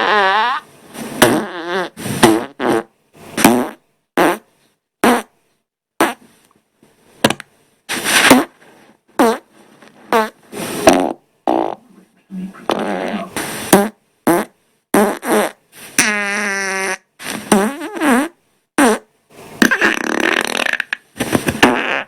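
A rapid string of human farts edited back to back, about twenty in all. They are short blasts that cut off abruptly, with brief silences between, and several have a clear pitch that wavers up and down.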